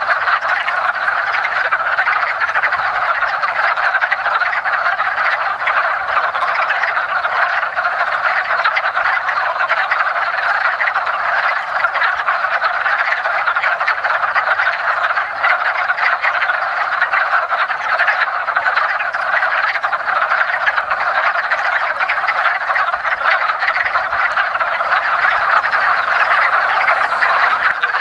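Breeding chorus of many male wood frogs calling at once, a dense, unbroken mass of overlapping calls.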